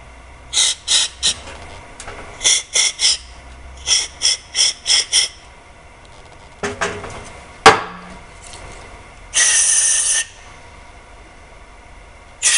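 Aerosol carburetor cleaner sprayed through a thin extension straw into the jets of a Tecumseh mower carburetor to flush out a clog. It comes as eleven short hissing squirts in three quick groups, then one longer spray of about a second near the end. A knock and a sharp click fall between them.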